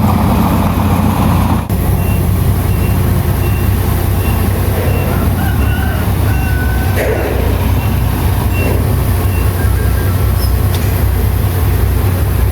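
Heavy diesel earthmoving machinery running steadily, with a reversing alarm beeping about twice a second for several seconds from about two seconds in.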